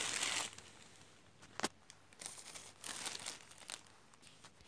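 Plastic packaging crinkling and rustling as a hair dryer is taken out of it, with a sharp click about one and a half seconds in.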